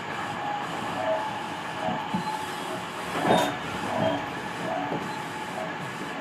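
Tobu 50000 series electric train running, heard from inside the front of the car: a steady rumble with irregular knocks from the wheels over the rail joints, the loudest about three and a half seconds in, and short tones that come and go.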